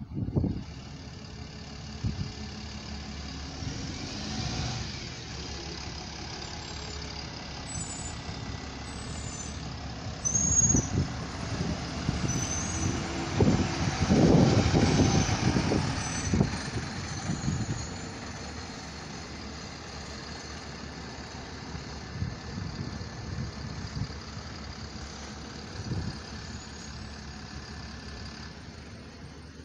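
Diesel buses running past: a double-decker pulling away, then a single-deck bus driving by, its engine loudest about halfway through and fading after.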